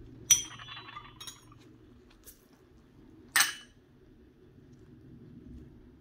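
Small ceramic bowl clinking against a clay mortar as chilli flakes are tipped in: a sharp ringing clink about a third of a second in, lighter taps around a second later, and another ringing clink about three and a half seconds in.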